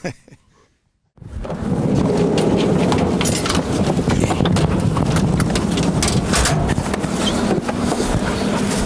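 Dogs stirring in the van's transport crates: a steady clatter of paws, claws and rattling crate fittings, full of small knocks, starting suddenly about a second in.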